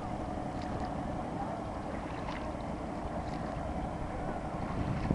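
Steady low rumble and drone aboard a boat under way on a river.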